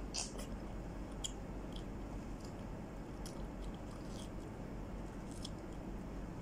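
A person biting and chewing a piece of peeled fruit, with small irregular mouth clicks scattered through, over a steady low hum.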